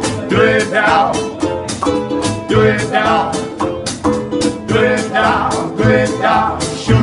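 Swing band playing an instrumental passage: strummed ukulele chords on a steady beat over washtub bass notes, with a melody line rising and falling above them.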